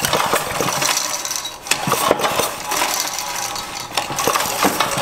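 5 hp flathead Briggs & Stratton Raptor engine being pull-started, its recoil starter cord yanked again and again so the engine cranks over with clattering strokes but does not catch and run. It has no choke and is primed by hand, and it will not start.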